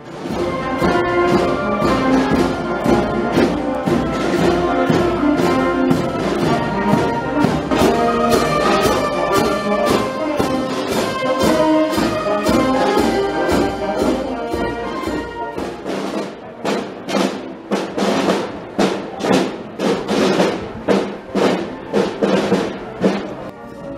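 Marching brass band playing in the street: saxophones, French horns, trumpets and a tuba over a steady drum beat of about two strokes a second. About two-thirds of the way in the bass drops away, leaving the beat and the higher brass.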